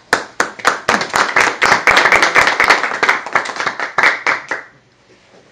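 A small group applauding: fast, dense hand clapping that thins out and stops about four and a half seconds in.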